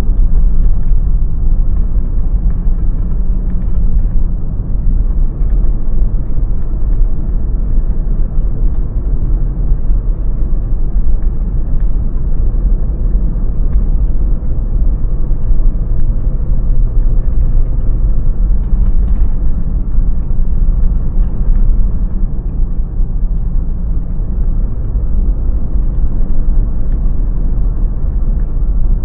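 Car driving along a road: a steady low rumble of engine and tyre noise, with a few faint scattered ticks.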